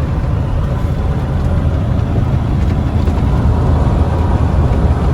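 Loaded semi truck driving, heard from inside the cab: a steady low rumble of the diesel engine and road noise.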